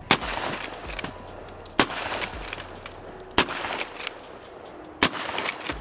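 Lever-action rifle fired four times in quick succession, about a second and a half apart, each shot blowing apart a watermelon.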